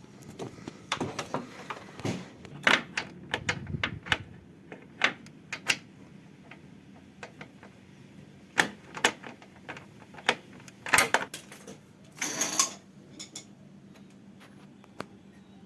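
Irregular clicks, knocks and clatter of hand tools and parts being handled during car repair work, with a half-second burst of noise about twelve seconds in.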